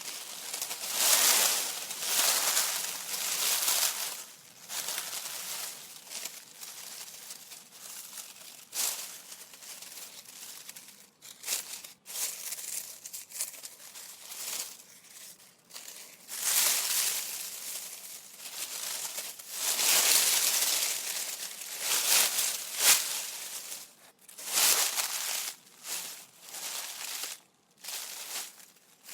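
Leaves rustling and crunching in irregular swells a second or a few seconds long, with brief crackling strokes between them.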